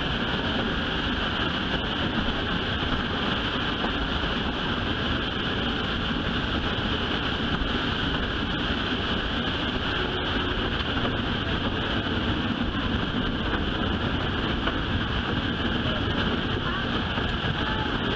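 Steady running noise of a rail vehicle travelling along the track, an even low rumble with a constant high hiss over it.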